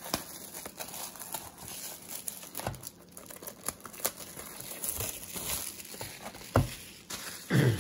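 Plastic shrink-wrap being torn and pulled off a trading-card hobby box, crinkling and crackling irregularly.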